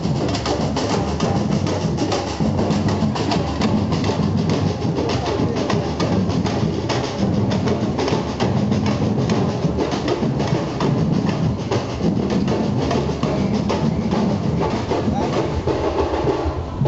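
A street percussion band of slung marching drums playing together in a steady, busy rhythm.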